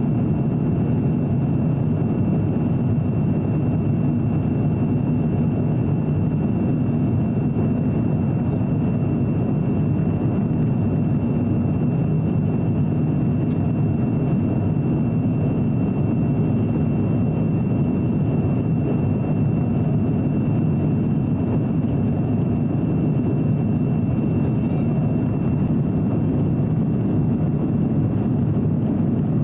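Steady cabin noise inside an Airbus A350-900 in flight: a deep, even rush of airflow and Rolls-Royce Trent XWB engine noise, with a thin steady high whine on top.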